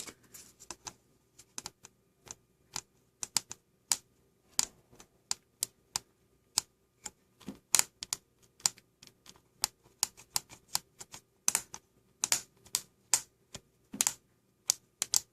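A fragile 4-pin connector on a circuit board being wiggled back and forth by finger: an irregular run of sharp clicks, a few a second, as it is worked loose to break it off.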